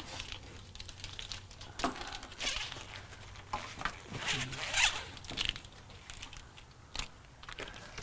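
Irregular rustling and scraping of a wiring harness in corrugated plastic loom as it is pulled and fed along a truck's frame rail, loudest about halfway through.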